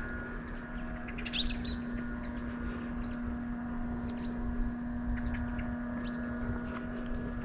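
Birds chirping in short calls, with a louder cluster of chirps about a second and a half in, over a steady low hum.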